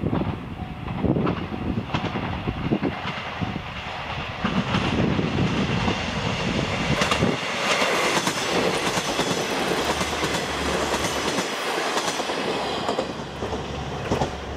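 KiHa 40-series diesel railcars, a train of several cars, running past on the line. The wheels clack steadily over the rail joints, loudest when the cars pass about halfway through, then easing slightly near the end.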